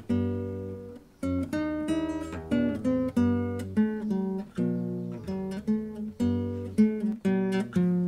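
Background music on a guitar: plucked notes and chords, each ringing and fading, about two to three a second, with a brief lull about a second in.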